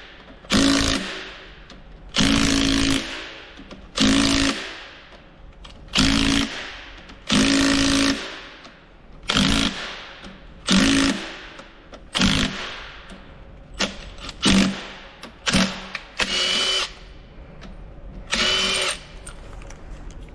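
Cordless ratchet running in about a dozen short bursts, roughly one every second and a half, on a fastener in a Fendt 724 tractor's front planetary hub. The last two bursts whine higher.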